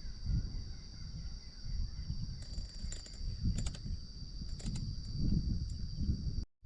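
Steady high-pitched drone of insects, over irregular low rumbling thuds and scuffs, with a few sharp clicks in the middle. The sound drops out completely for a moment near the end.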